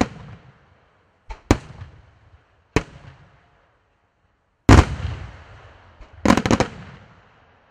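Aerial firework shells bursting. A sharp report comes at the start, then single bursts follow about a second apart. The loudest comes a little under five seconds in, and a quick cluster of several reports comes near the end, each report fading out over about half a second.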